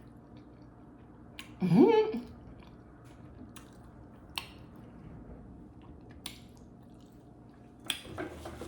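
A person chewing boiled egg, with wet mouth clicks and lip smacks, and a short rising "mm" of enjoyment about two seconds in.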